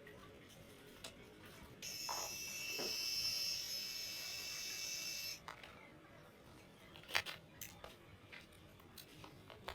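Small label printer running for about three and a half seconds as it feeds and prints a label, a steady high whir that starts about two seconds in and stops abruptly. Scattered light clicks follow as the label is handled.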